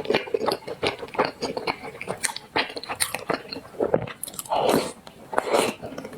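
Close-miked eating: a person biting and chewing, with many irregular sharp crunching clicks and a few short wetter mouth sounds.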